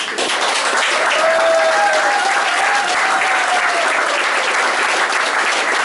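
Crowd applauding, a steady wash of many hands clapping.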